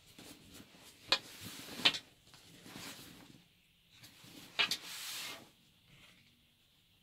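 Cloth gas mask bag being handled and opened: fabric rustling and scraping, with three sharp crackles or clicks, about a second in, near two seconds and halfway through.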